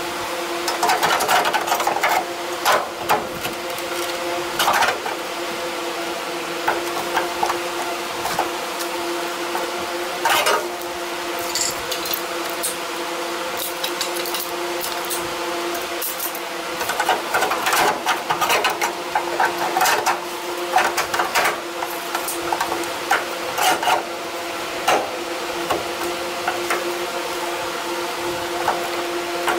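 Metal parts clinking and tapping as sheet-metal repair pieces are handled and fitted, in clusters early on and again through the second half, over a steady mechanical hum.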